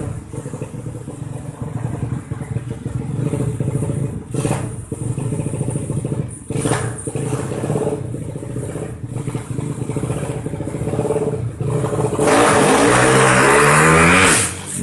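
Motorcycle engine running unevenly, with a rough clatter. It is blipped briefly a couple of times, then revved hard for about two seconds near the end before falling back. This is an engine its owner calls wrecked ('mesin ambrol').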